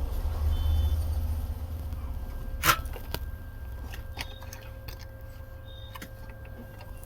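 Small tool clicks and taps at a workbench while a new charging connector is tinned with solder paste, over a low hum that fades. One sharper tap comes a little over two and a half seconds in, and a faint steady tone starts about halfway through.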